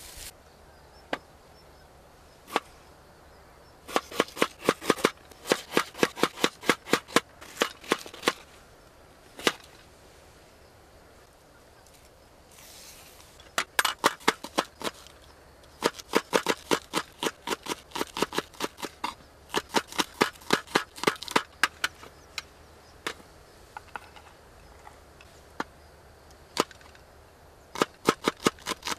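Kitchen knife chopping green onion and green chili peppers on a wooden plate. Sharp knocks come in quick runs of about five a second, with pauses and a few single cuts between the runs.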